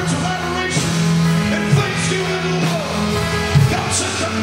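Live gospel praise band playing rock-style music: a man sings over a drum kit and sustained band backing, with cymbal crashes a few times.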